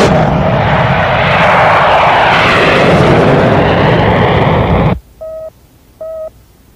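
Jet aircraft taking off and climbing away: a loud, steady rush of jet noise that cuts off abruptly about five seconds in. Then come two short electronic beeps, the incoming-call signal of the portrait communicator.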